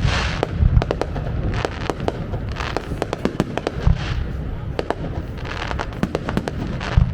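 Aerial fireworks exploding: three deep booms of shells bursting, with many sharp pops and crackling, hissing bursts between them.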